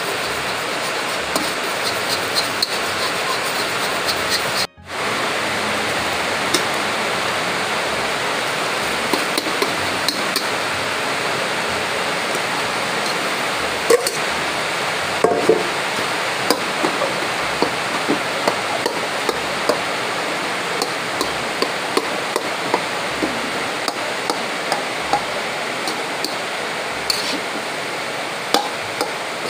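Stir-frying in a steel wok: a metal spatula scraping and clinking against the pan over a steady hiss of frying, with the sound cutting out briefly about five seconds in.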